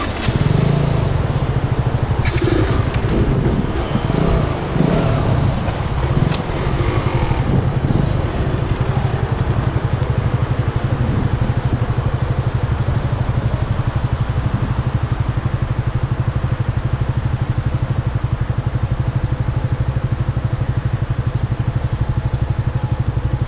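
Motorcycle engine running close by, its note rising and falling over the first several seconds, then settling into a steady, even idle.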